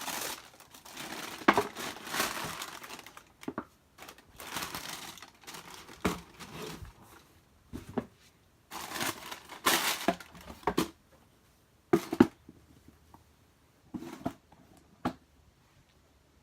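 Packaging paper crinkling and rustling in irregular handfuls as a sneaker box is unpacked, broken by several sharp clicks and knocks from handling.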